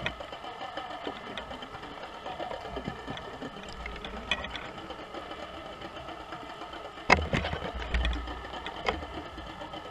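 A boat's engine and propeller heard underwater: a steady mechanical hum with a high whine. A sharp knock about seven seconds in, followed by a few lighter clicks.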